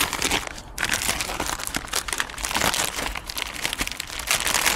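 Plastic packaging crinkling and rustling as it is handled, a continuous run of small crackles.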